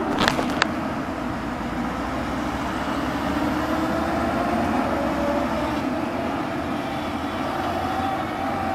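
Roadside traffic: vehicle engines running and passing, a steady hum whose pitch slowly drifts up and down. A few sharp clicks in the first second.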